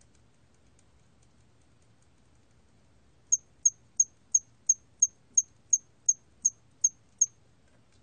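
Hairy cricket (털귀뚜라미) chirping, recorded at 27 °C: a run of twelve short, high-pitched chirps, about three a second, starting about three seconds in.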